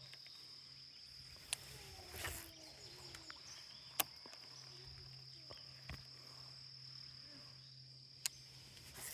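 A steady, high insect chorus, typical of crickets, runs under a low hum. A few short, sharp clicks sound about one and a half, four and eight seconds in.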